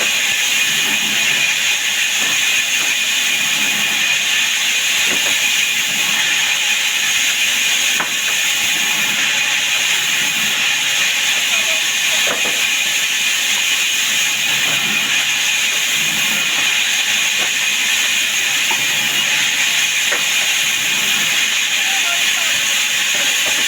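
Sawmill machinery running steadily: a constant hiss with a steady high tone, and a few faint knocks.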